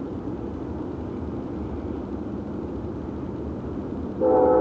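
Amtrak GE Genesis P42DC diesel locomotive approaching with a steady rumble of engine and wheels between horn blasts. About four seconds in, its air horn sounds again, loud, a chord of several tones.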